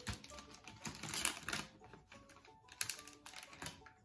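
Plastic salami packaging crinkling and crackling as the film is peeled open and the plastic tray is handled, over soft background music.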